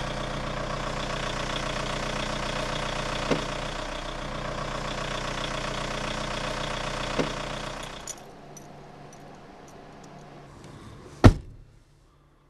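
A hatchback car's engine idles steadily, then cuts out about eight seconds in. Near the end a car door slams shut once, loudly.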